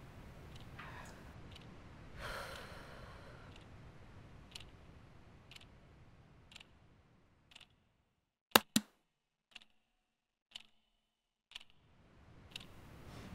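A clock ticking about once a second in a quiet room. About two seconds in there is a breathy sigh. A little past the middle come two sharp laptop key clicks in quick succession, after which the room tone cuts out and only the ticking remains.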